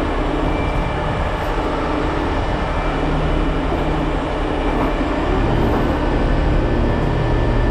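Diesel engine of a heavy rotator tow truck running steadily, heard close by, growing louder about five seconds in.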